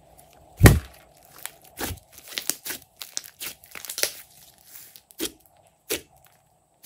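Hands squishing and kneading thick slime (glossy slime mixed with clay and makeup), with a sharp pop a little under a second in and a run of smaller crackling pops and clicks as pockets of air burst in it.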